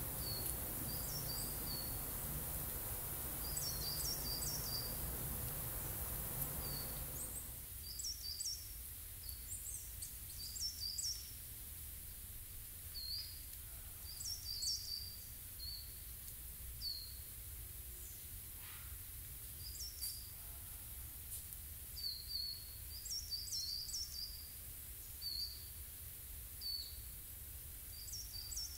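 Small songbirds calling with short, high chirps, often two or three in quick succession, scattered through the whole stretch. Under them a steady low rumble and hiss drops away sharply about seven seconds in, leaving the chirps over quieter forest air.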